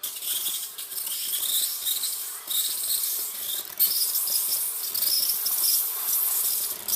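Breville espresso machine's steam wand venting steam: a loud hiss that starts suddenly, with a wavering high whistle riding over it. The wand is being run through to flush the new machine before first use.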